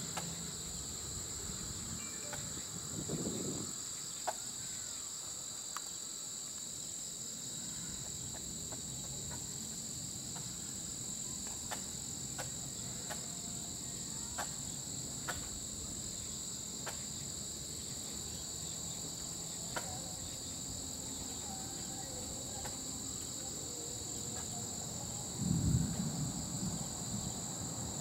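Steady evening chorus of crickets and other insects, a continuous shrill trill. A few sharp clicks and two brief low rumbles come through, about three seconds in and near the end.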